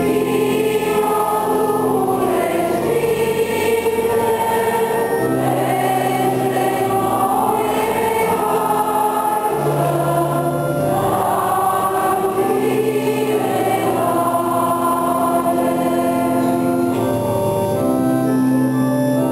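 Church choir singing a slow hymn with organ accompaniment, the organ holding long sustained chords under the voices while its bass steps from note to note.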